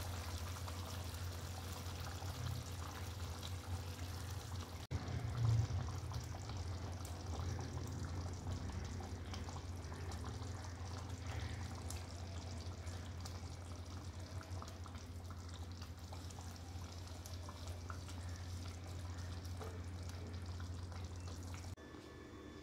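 Egg curry gravy simmering in a pan, bubbling over a steady low hum. The sound breaks briefly about five seconds in, and drops away just before the end.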